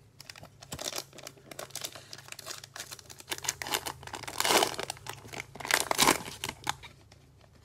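Plastic wrapper of a football trading-card fat pack being torn open and crinkled by gloved hands, a dense run of crackling and tearing, loudest about four and a half and six seconds in.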